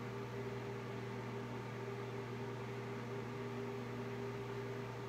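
Steady mechanical hum of a running household appliance motor, with several fixed tones over a faint even hiss.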